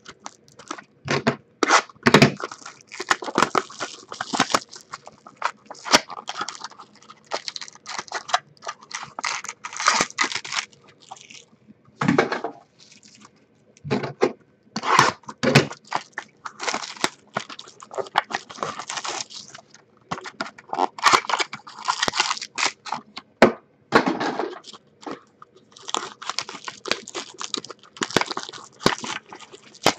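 Trading card boxes and packs being opened by hand: plastic wrappers tearing and crinkling in quick, irregular bursts, with cardboard scraping and small clicks, and a few short pauses.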